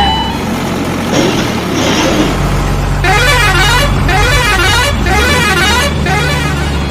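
A warbling, siren-like horn whose pitch rises and falls about twice a second, coming in four short stretches, over a low steady engine-like drone.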